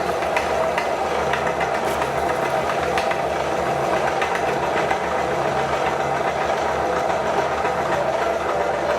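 Electric meat grinder motor running steadily, with scattered small clicks and rattles, as it grinds hand wash soap.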